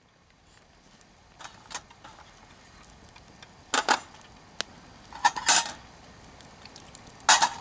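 Small metal objects being handled: a series of short metallic clinks and rattles. The loudest come about halfway through and again near the end.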